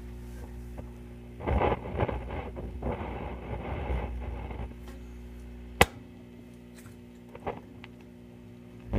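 Silvertone 4586 tube radio giving a steady hum with a burst of crackling static from about a second and a half in to past four seconds, then a sharp click near six seconds. This is the noise it makes instead of stations on the police band after a recap, the fault being troubleshot.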